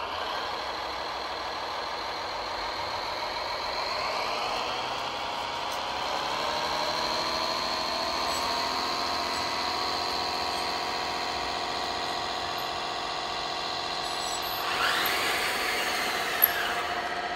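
Radio-controlled model tractors straining against each other in a tractor pull: a steady, many-pitched mechanical whine that shifts up in pitch about four seconds in. Near the end the whine swings up and back down as the tractors move off, and there is one sharp click.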